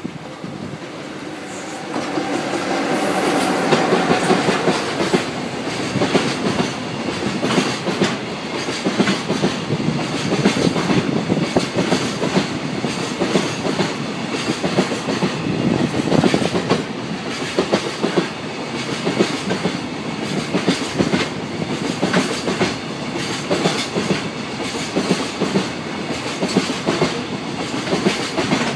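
EF66 electric locomotive hauling a container freight train past at close range. The sound gets louder about two seconds in as the locomotive goes by, then the wagons roll past with a continuous clickety-clack of wheels over the rail joints.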